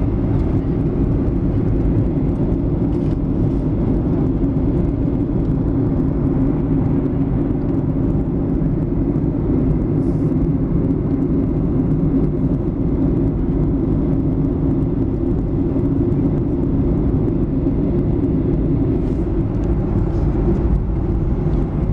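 Steady cabin noise of an airliner in flight: engines and rushing air as a low, even hum that does not rise or fall.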